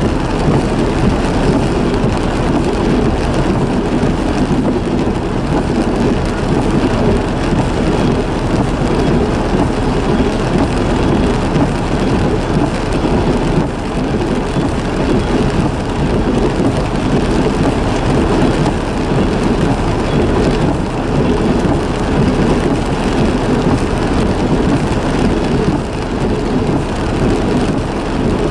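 Freight train rolling past at steady speed: a continuous rumble and rattle of steel wheels on the rail, with no horn.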